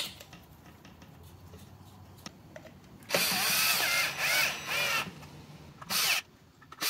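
Milwaukee M12 cordless drill/driver running for about two seconds, its motor pitch wavering as it drives a screw through the blower's plastic housing into the motor, then a short burst about six seconds in as the screw is snugged down.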